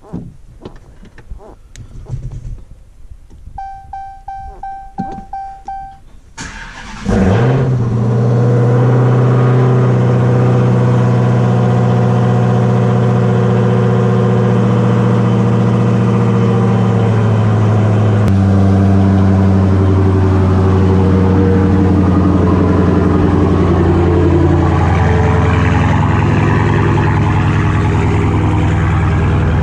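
Dodge Challenger SRT Hellcat's supercharged 6.2-litre V8 being started. A few clicks and the car's warning chime sounding several times come first. The engine catches about seven seconds in with a surge, then settles into a steady, loud idle that drops slightly in pitch about eighteen seconds in.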